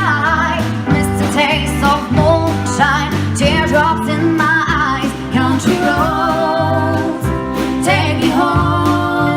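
A soul-blues band playing live, with drums, a bass line stepping from note to note, and keyboard and guitar. Over it runs a lead melody with strong vibrato.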